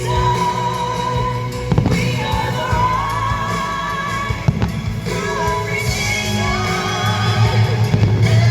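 Show soundtrack music with a singing voice, over which a few sharp firework bangs go off.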